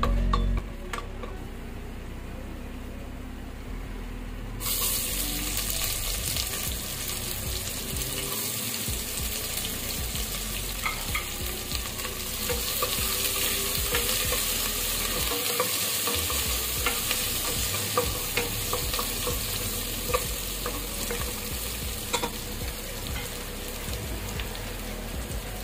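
Sliced onions sizzling in hot ghee in a pressure cooker, stirred with a wooden spatula that clicks and scrapes against the pan. The sizzle jumps up suddenly about four and a half seconds in, when the onions go into the fat, after a quieter stretch of cashews frying.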